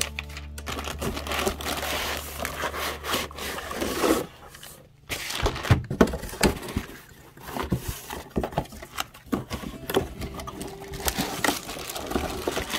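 Cardboard laptop box being opened by hand: flaps scraping and rustling, with many sharp knocks and crinkles as the packing is handled, and a short lull about four seconds in.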